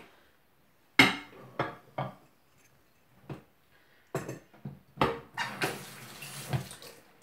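A ceramic ramekin and metal spoon clattering as they are picked up and set down: a sharp knock about a second in, then a string of clinks and knocks, with a rushing hiss under the clatter over the last two seconds.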